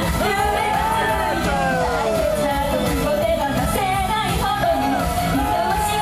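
Idol-pop group's singing over a loud backing track with a steady beat, from a live performance in a hall.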